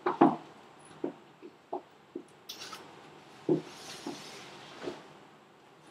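Clothes rustling and a few light knocks and taps, irregularly spaced, as garments are changed or adjusted.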